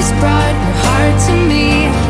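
Background music: a song with a moving melody over sustained bass notes.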